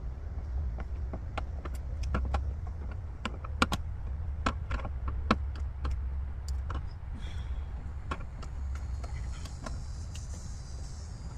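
Scattered sharp plastic clicks and taps as a flathead screwdriver pries push-in trim clips out of a car's inner door panel, over a steady low rumble.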